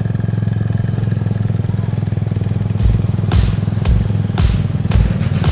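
Motorcycle engine running steadily at low speed, close by. About three seconds in, short thumps start, about two a second.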